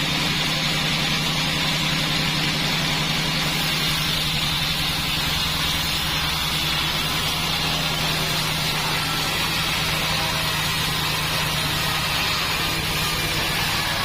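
Bandsaw sawmill machine running steadily: an even, low machine hum with a fast pulse in it and a hiss above, at a constant level throughout.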